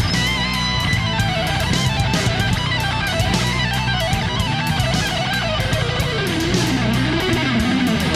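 Background music led by electric guitar over a steady bass line, with a rock or metal feel and a wavering lead guitar melody.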